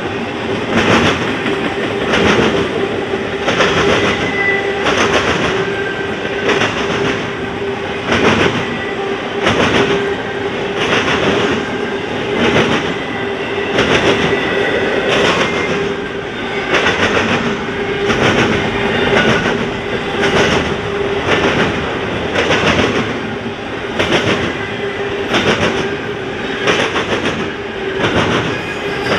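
Wheels of double-stack intermodal freight cars clattering over the track in a steady clickety-clack, about one clack every second or a little less. A steady hum runs under the clacks.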